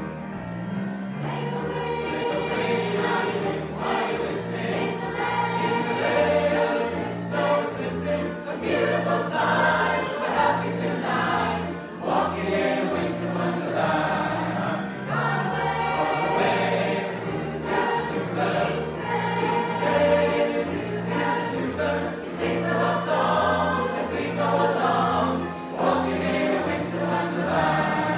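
A mixed choir of men's and women's voices singing together.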